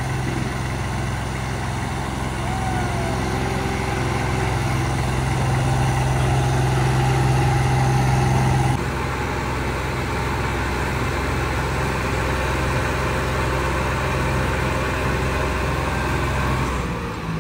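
Two diesel tractors, an 855 and a 735, running hard under load in a tractor tug of war: a steady, loud, deep engine drone that builds over the first eight seconds or so, then drops abruptly and runs on evenly.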